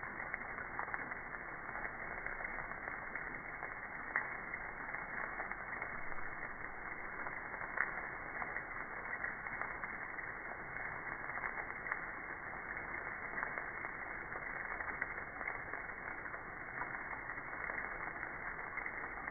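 Hail falling: a dense, steady patter of ice stones striking surfaces, with frequent sharper ticks standing out.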